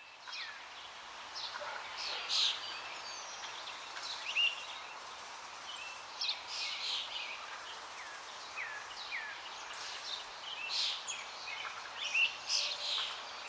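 Several birds calling: short high chirps and quick downward-sliding whistled notes, scattered throughout over a steady faint hiss of outdoor air.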